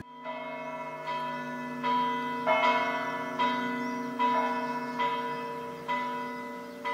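Church bells ringing, a new stroke about once a second, each ringing on under the next so that several pitches sound together.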